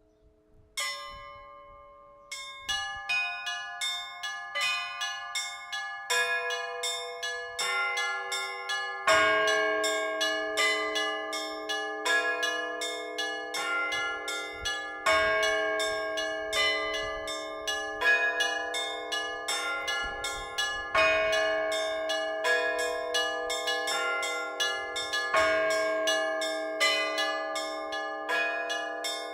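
Orthodox church bells rung by hand in a full peal: a single stroke, then the small bells start a quick repeating pattern about two and a half seconds in, and from about nine seconds a deeper bell strikes every three seconds or so beneath them.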